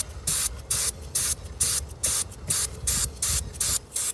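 Aerosol can of WD-40 motorcycle chain cleaner spraying onto a motorcycle chain in a fast run of short hissing bursts, about four a second.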